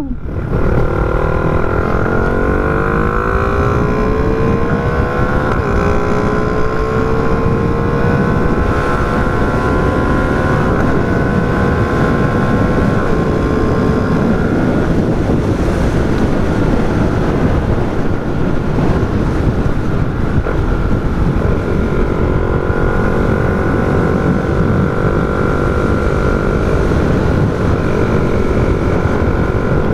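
Small underbone motorcycle engine, geared with a 15/34 sprocket set, pulling up in pitch over the first few seconds and then holding a steady cruising note. Heavy wind rumble on the handlebar-mounted microphone runs under it.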